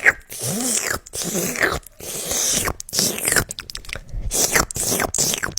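ASMR mouth sounds close to the microphone: a run of wet smacks and clicks, one after another with short gaps.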